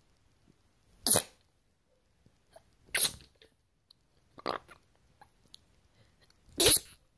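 A person sneezing four times in a row, each sneeze a short sharp burst with a pause of one and a half to two seconds between them. The third sneeze is softer than the other three.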